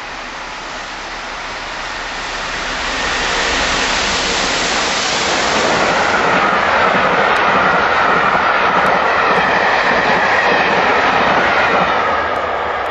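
Peppercorn A1 three-cylinder steam locomotive 60163 Tornado and its coaches passing at speed. A loud rush swells over the first few seconds as the engine goes by, then the coaches run past with a steady high note in the noise, fading near the end as the train recedes.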